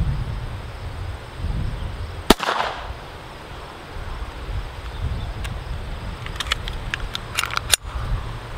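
A Hi-Point CF380 .380 pistol fires one sharp shot about two seconds in, with a short echo after it. Several lighter clicks and a sharper crack follow near the end, over a low rumble of wind on the microphone.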